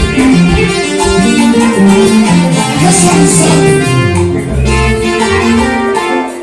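Worship band music led by guitar, with held notes throughout and deep bass notes about four to five seconds in.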